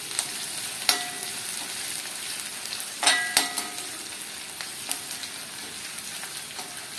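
Chopped onions, crushed garlic and curry leaves sizzling in hot coconut oil in a metal kadai. They are stirred with a metal slotted spoon that clinks against the pan about a second in and twice around three seconds in.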